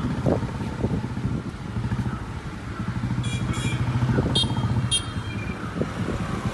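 A motor vehicle engine running close by, a steady low throb, with a few short high-pitched chirps between about three and five seconds in.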